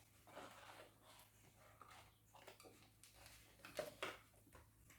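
Faint rustling and small clicks of toy packaging being handled as the figures are taken out of their box, with a couple of sharper clicks about four seconds in.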